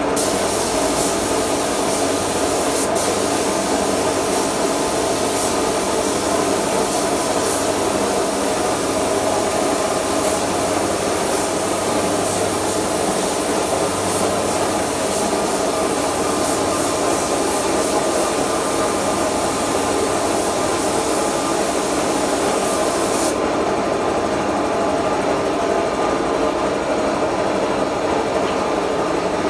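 Paint spray gun hissing steadily as wooden bed frames are sprayed, over the steady hum of a motor. About 23 seconds in the spray hiss stops and the motor hum keeps running.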